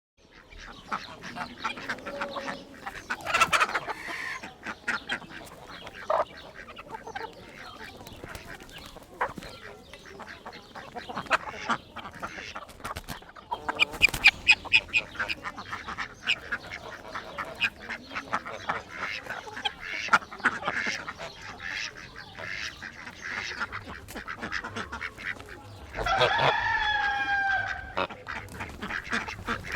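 A flock of chickens in a coop clucking and squawking in short irregular calls, with one longer drawn-out call that falls in pitch near the end.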